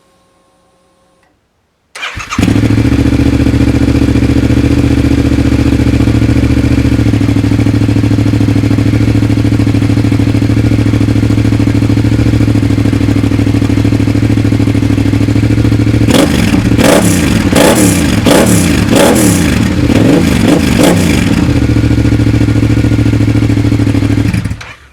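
2022 Yamaha MT-07's parallel-twin engine breathing through a full MIVV Delta Race exhaust with no catalytic converter: started about two seconds in, idling steadily, then given a run of quick throttle blips before settling back to idle and being switched off just before the end.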